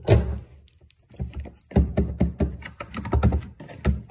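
Plastic drawers of a Milwaukee Packout three-drawer tool box being worked on their metal slides. There is a knock at the start, then from about a second in a quick run of clicks and knocks as the drawers slide and bump shut.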